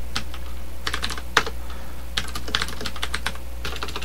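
Computer keyboard typing in quick runs of keystrokes, including repeated Backspace presses, with one louder key strike about a second and a half in. A steady low hum lies underneath.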